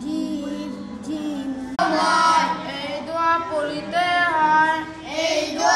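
Children chanting Arabic letters in a melodic, sing-song recitation as part of a Quran reading lesson. About two seconds in it cuts abruptly to a louder, higher-pitched girl's voice holding long, wavering notes.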